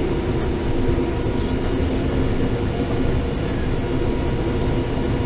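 Case IH 7130 combine running steadily while harvesting corn, heard from inside the cab: a continuous engine and machinery drone with a few steady hums in it.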